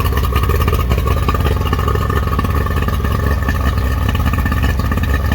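A 2005 Tohatsu 40 hp outboard motor runs steadily on a water hose hookup, being test-run after a new water pump impeller was fitted.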